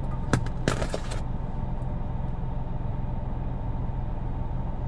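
Steady low hum of a car's engine idling, heard inside the cabin, with two light clicks and a brief rustle in the first second.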